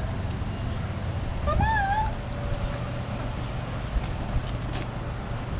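A dog gives one short whine, about half a second long, with a wavering, wobbling pitch, about a second and a half in. A low steady rumble runs underneath.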